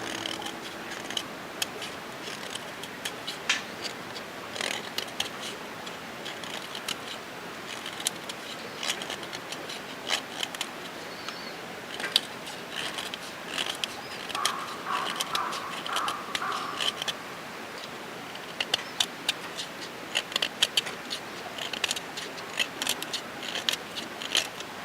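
Irregular small clicks and light scrapes of objects being handled, with a brief run of higher-pitched pulses a little past the middle.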